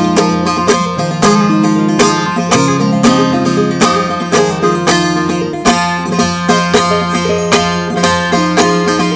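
Instrumental break of a Turkish folk song: a plucked-string bağlama plays a quick run of notes over sustained low notes, with no singing.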